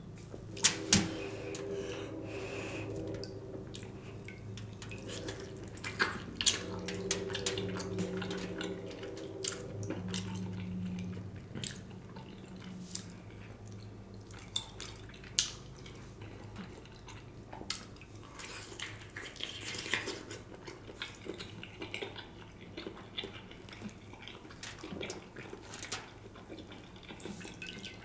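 Wet chewing and mouth sounds of someone eating a sauce-covered smoked turkey leg, with scattered sharp clicks and clinks.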